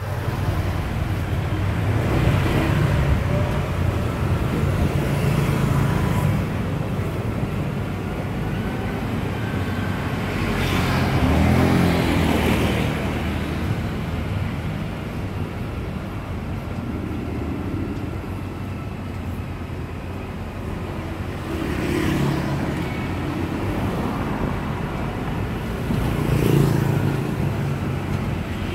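Motor vehicle engine running with road and traffic noise: a steady low rumble that swells for a while about eleven seconds in and briefly twice more near the end.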